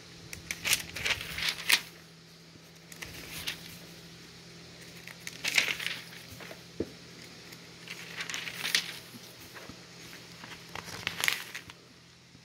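Thin catalogue pages being turned by hand: paper rustling and flapping in four short bursts, over a faint steady low hum.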